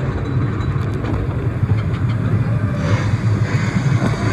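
Lightning Rod wooden roller coaster train rolling along the track toward the launch hill, a steady low rumble, with a rising hiss joining in about three seconds in.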